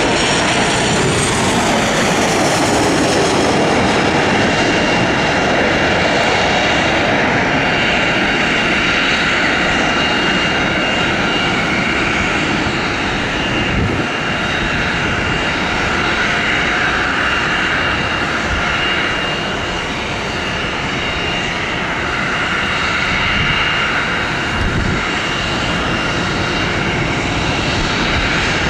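Boeing 737-900ER's CFM56-7B turbofan engines passing low overhead on final approach, their whine falling in pitch over the first couple of seconds. A steady jet roar follows and carries on through the landing roll.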